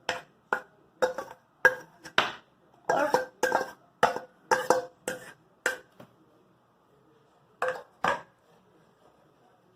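Homemade slime being stirred and worked in a pot: a run of sharp clicking knocks about two a second, stopping about six seconds in, then two more near eight seconds.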